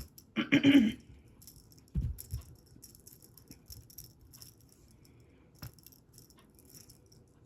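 Cat toy rattling and jingling in short, scattered bursts, with a couple of soft knocks.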